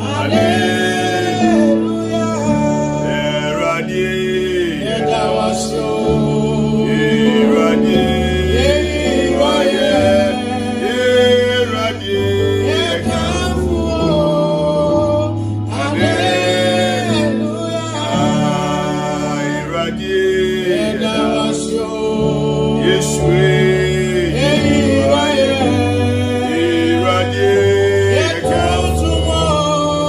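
Gospel music: a man singing over instrumental backing with a bass line that changes note every couple of seconds.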